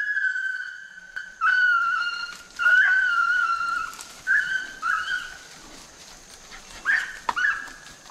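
Hunting hounds baying while running a deer's track: one long drawn howl, then a string of shorter bawls with gaps between them. A few sharp snaps of brush come in between the cries.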